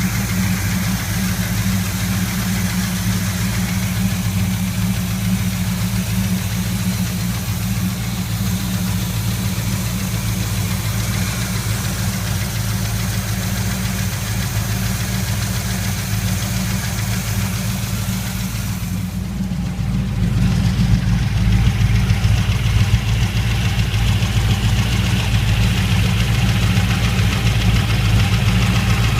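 Chevy 350 small-block V8 idling warm with a light, even tapping. This is the ticking/knocking that appears only once the engine is warmed up and that readjusting the lifters has not cured. About twenty seconds in the engine sound gets louder and deeper.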